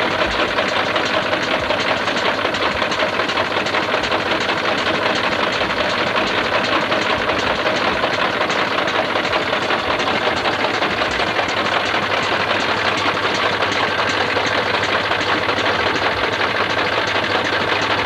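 Tractor engine running steadily at idle, driving the vacuum pump for a mobile milking machine, with a fast, even ticking over the engine's drone.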